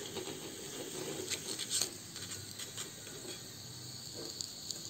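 Hot oil sizzling steadily around a crumb-coated noodle-omelette triangle deep-frying in a small metal pan, as the piece is lifted out on a slotted spoon. A few light clicks come through, the clearest a little under two seconds in.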